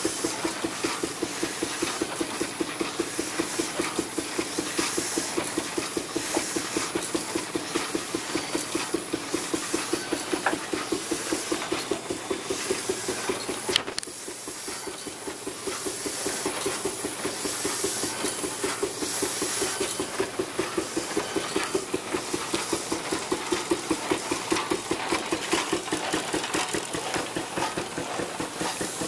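Steam traction engine running steadily, its exhaust beating in a fast, even rhythm with a hiss of steam over it. A sharp click about halfway through, after which it is briefly quieter.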